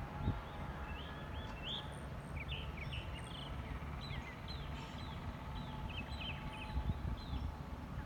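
Small birds chirping, many short quick notes in a busy stream, over a steady low outdoor rumble.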